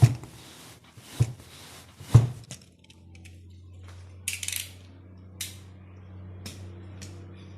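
Three sharp knocks about a second apart, then a steady low hum that starts about three seconds in, with a brief hiss and a few light clicks over it.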